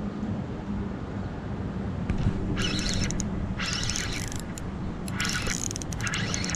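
Penn Clash II 4000 spinning reel being cranked in four short bursts, a grainy mechanical whirr, as line is wound in, over a steady low rumble.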